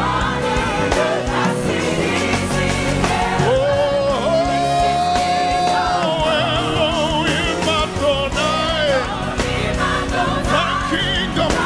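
Live gospel worship music: sung voices with vibrato over a full musical backing, with one long held note from about three and a half to six seconds in.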